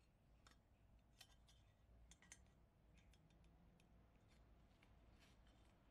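Near silence, with a dozen or so faint scattered clicks and taps from handling metal stove parts.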